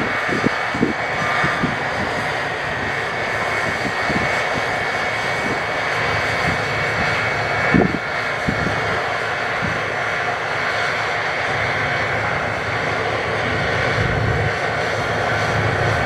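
New Holland CX8080 combine harvester running steadily: a loud, even machine drone with a steady high whine over it. A few short low knocks come through, the clearest about eight seconds in.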